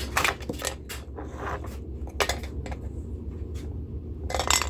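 Handling noises of a small HO-scale model locomotive being picked over: irregular clicks, taps and short scrapes, the strongest just after the start and near the end, over a low steady hum.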